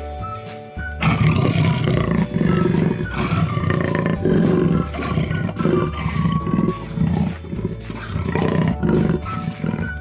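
A big cat growling and roaring in a string of calls, from about a second in until near the end, over background music.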